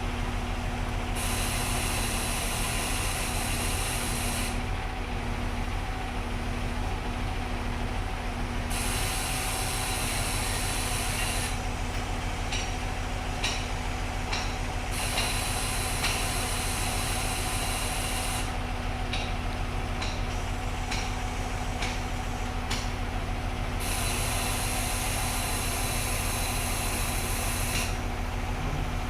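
Concrete pump truck's diesel engine running steadily under load, with a high hiss that comes and goes in spells of about three seconds and scattered clicks between them.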